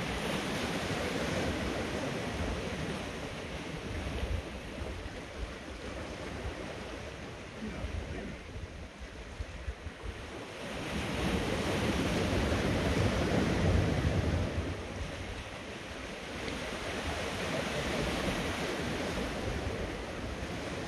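Sea swell washing over and around rocks, the surf surging and falling back, loudest a little after halfway through.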